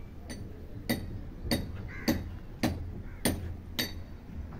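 Steady hammer blows, a sharp metallic clink about every 0.6 seconds, as from masons working with hammer and chisel.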